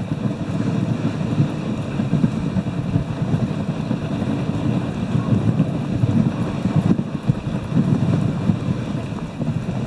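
Dog sled gliding over a packed snow trail behind a running team: a steady low rumble of the runners, with wind buffeting the microphone.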